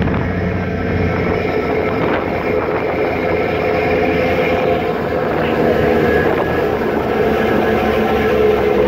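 Passenger ferry's engines running under way: a steady drone with a low hum and a higher whine that grows a little stronger in the second half, over the rush of churning wake water.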